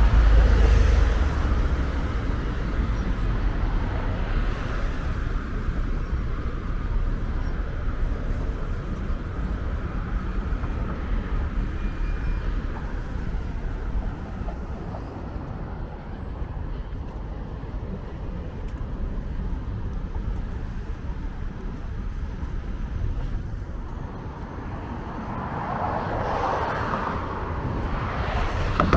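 City road traffic: a steady rumble of passing cars, louder as vehicles go by at the very start and again near the end.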